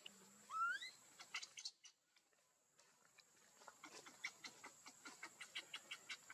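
A monkey's short squeal rising in pitch, then, after a brief hush, a fast run of short squeaks and clicks, about four a second, from a baby macaque squirming on its back in dry leaves.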